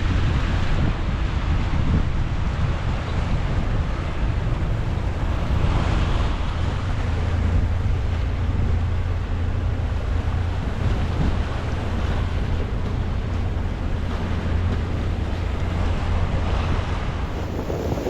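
Wind buffeting the microphone over a steady, loud rushing noise, with a few gusty swells.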